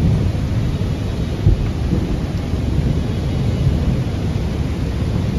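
Heavy rain pouring steadily in a storm, with a deep continuous rumble underneath.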